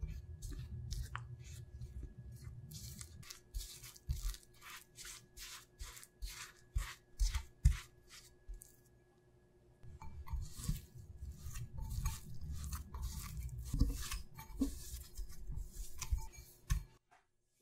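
A silicone spatula scraping and stirring crumbly glutinous rice flour and milk in a glass bowl, in quick strokes about two a second. After a short pause, hands squeeze and knead the dry, crumbly dough in the bowl, with irregular rubbing and soft thuds.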